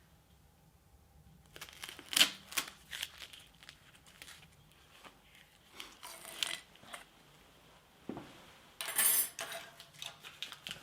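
Metal tools and machine parts being handled: scattered clinks, knocks and a short scrape, typical of refitting a plug or fitting during an oil change.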